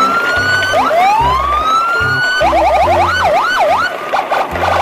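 Electronic siren sound effect. In the first half it gives two slow rising whoops, then from about halfway it switches to quick up-and-down wails, and near the end to a rapid warble. A music track with a steady bass beat runs underneath.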